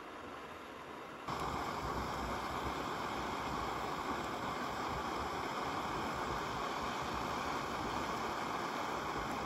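Canister gas backpacking stove burning under a metal mug with a steady hiss, which becomes much louder about a second in.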